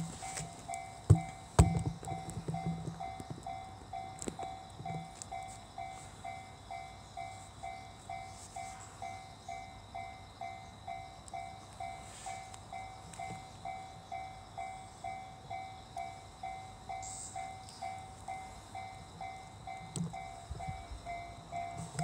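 Japanese railway level-crossing warning bell ringing steadily, about two dings a second, the signal that a train is approaching. A few sharp knocks near the start.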